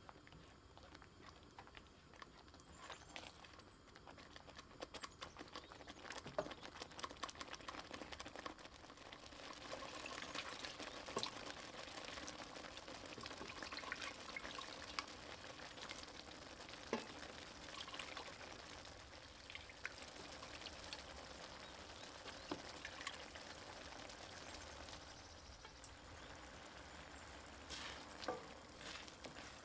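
Boiled chickpeas poured into a stainless steel wok of thick, bubbling tomato-onion sauce, then stirred in with a silicone spatula. The sound of wet pouring and sputtering grows denser about nine seconds in, with scattered small clicks.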